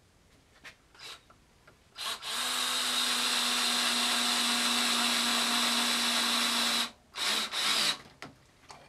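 Power drill driving a pocket hole screw: the motor runs at a steady speed for about five seconds, then two short bursts seat the screw.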